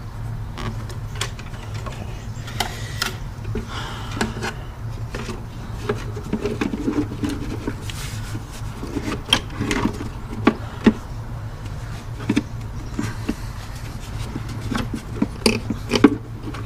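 Irregular clicks, knocks and rubbing of parts being handled as the air filter box cover is fitted, over a steady low hum.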